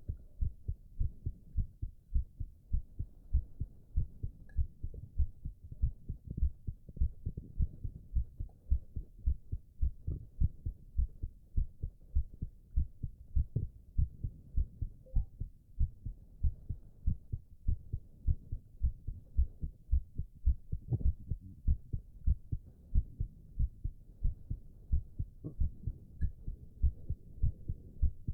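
A man's heartbeat: steady, evenly spaced low thumps repeating throughout.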